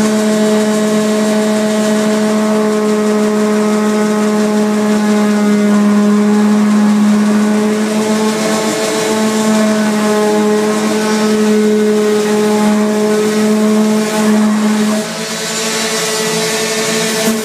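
Electric sander running steadily on a countertop being refinished after a repair, a constant motor hum. It gets a little quieter about fifteen seconds in.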